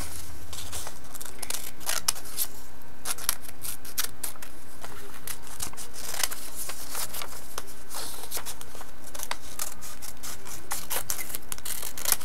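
Scissors snipping through a sheet of white paper: a run of short, crisp cuts at an uneven pace, with the paper rustling as it is handled.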